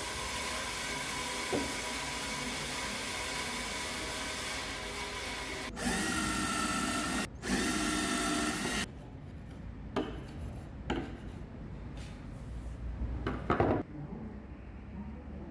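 Electric drill driving a homemade drill lathe runs steadily, spinning a wooden workpiece. It gets louder about six seconds in, drops out for a moment, then stops about nine seconds in. A few light knocks follow.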